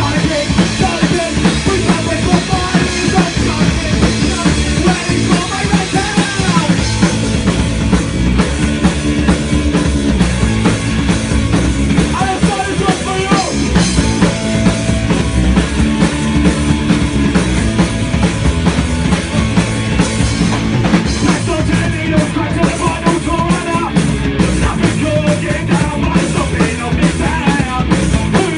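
Live rock band playing a fast punk-rock tune, with a drum kit driving it.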